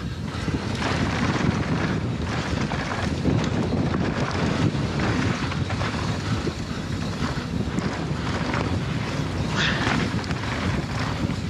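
Wind buffeting a GoPro microphone while a mountain bike descends a dirt trail at speed, with tyres rumbling and chattering over the ground. A brief hissing burst about ten seconds in.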